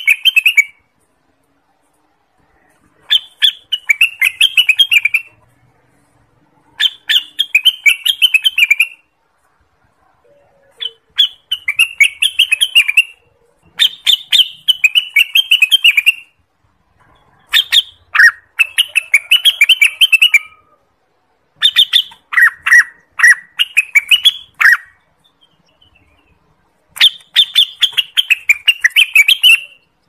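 Orange-spotted bulbul (cucak wilis) singing seven short phrases, each a quick run of chirping notes about two seconds long, with brief pauses between them.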